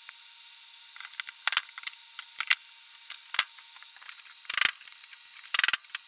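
A TPU print being peeled off a polycarbonate build sheet, with the sheet flexing: scattered clicks and short crackles, the two longest and loudest near the end.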